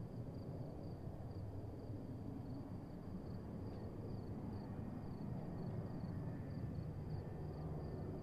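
Low, steady rumble of a distant Airbus A330-941 on approach, its Rolls-Royce Trent 7000 engines growing slightly louder toward the end, under the even, high pulsing chirp of crickets.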